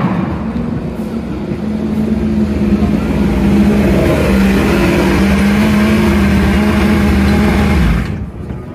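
Yamaha YZF-R1 WorldSBK superbike's crossplane inline-four, loud, its note falling at the start and then running at a fairly steady low engine speed as the bike rolls up the pit lane and brakes into a stopie. It goes quiet suddenly about eight seconds in as the bike pulls up.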